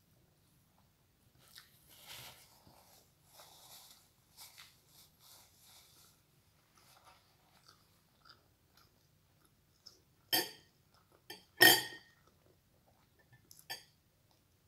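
A person chewing chicken adobo eaten by hand, in soft, scattered bursts, then two sharp clicks about a second apart near the end, the second the loudest.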